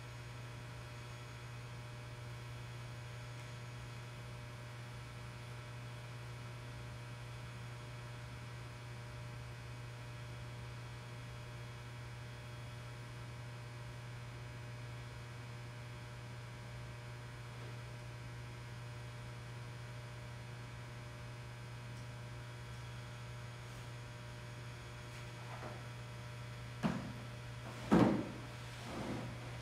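Steady low electrical hum. Near the end come a few short knocks, the loudest about a second and a half before the end.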